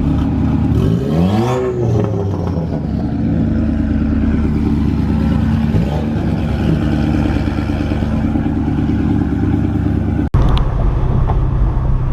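Ford Mustang GT's 4.6-litre three-valve V8 with aftermarket exhaust idling while it warms up, with a brief rise and fall in engine pitch about a second in. Near the end the sound cuts out for an instant and comes back deeper and fuller.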